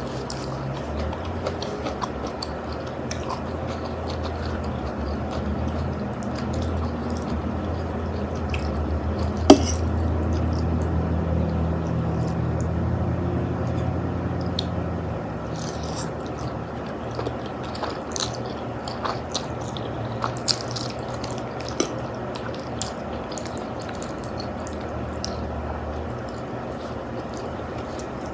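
Wet eating sounds of spaghetti and meatballs: scattered chewing and slurping smacks, with one sharp click about nine seconds in, over a steady low hum.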